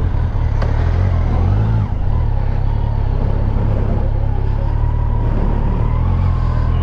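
Kawasaki Versys 1000's inline-four engine running steadily while the bike is ridden along a road, with wind noise over it. The engine note dips briefly about two seconds in, then carries on steady.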